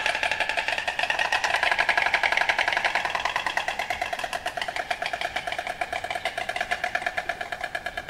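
Painted stork clattering its bill: a rapid, even, machine-gun-like rattle of about a dozen strokes a second, growing gradually fainter in the second half.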